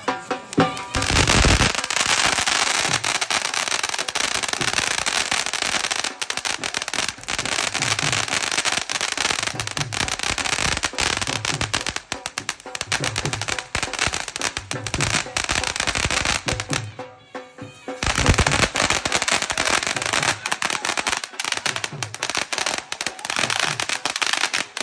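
Fireworks going off in a dense, continuous crackle of rapid pops, with a brief lull about two-thirds of the way through, then a loud bang and the crackling starts again. Music with a steady beat plays underneath.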